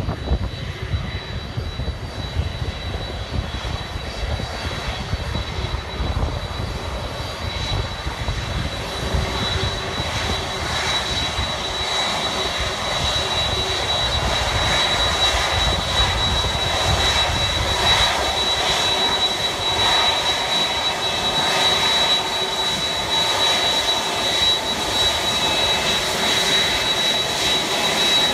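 Boeing 767-300's twin jet engines at taxi power as the airliner rolls head-on onto the stand: a steady high-pitched whine over a rumble, growing gradually louder as it approaches.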